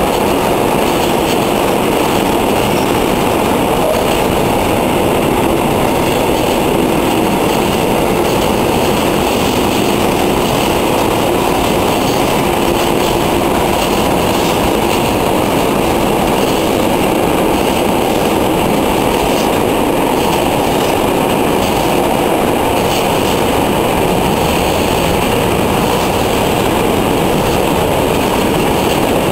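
Freight train wagons rolling steadily past on steel wheels and rails, a continuous loud running noise with no breaks.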